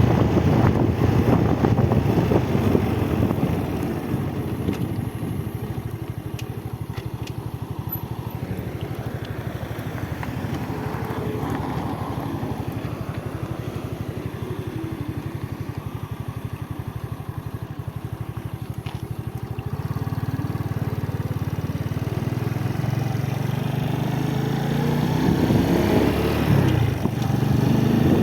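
Motorcycle engine running while riding. It eases off about four seconds in, holds steady, then builds again, its pitch climbing near the end with a brief drop shortly before the end.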